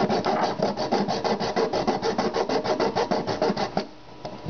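A hand-held hacksaw blade sawing through the plastic housing of a used Sawyer water filter, in fast, short, even strokes of about six a second. The sawing pauses briefly near the end, then starts again.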